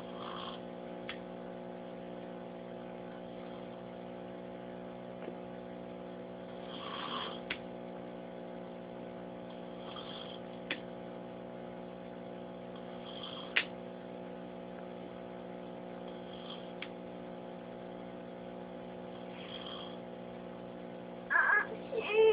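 A sleeping person snoring softly, one short breathy snore about every three seconds, over a steady electrical hum. A louder brief vocal sound comes near the end.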